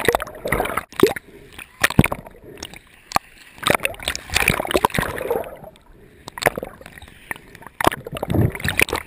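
Water splashing and gurgling around a waterproof action camera bobbing at the surface in choppy surf. It goes under and comes back out, with irregular sharp splashes and surges of churning water.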